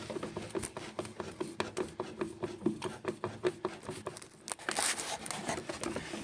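Screws being driven in by hand with a screwdriver to fix a new pulley to a washing machine: a quick run of small clicks and scrapes, with a brief louder rustle about four and a half seconds in.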